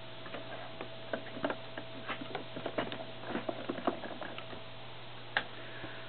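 A run of small irregular ticks and knocks from a hand handling a desktop computer power supply and its power cord, then one sharper click near the end as the power supply's switch is turned on, over a steady low hum.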